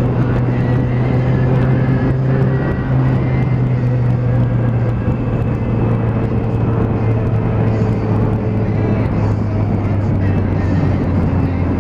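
Motorcycle engine running at a steady road speed under a haze of wind and tyre noise, its note easing slightly lower about halfway through.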